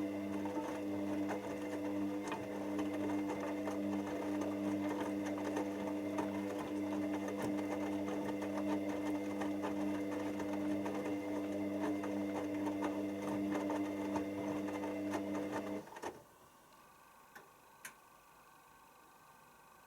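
Hoover DYN7144XD1 washing machine running with a steady hum and a fast, fine rattle. It cuts off abruptly about three-quarters of the way through, followed by two faint clicks.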